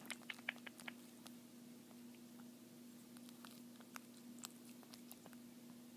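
Faint, scattered little clicks of a pug puppy mouthing and nibbling at fingers, a cluster in the first second and a few more later, over a low steady hum.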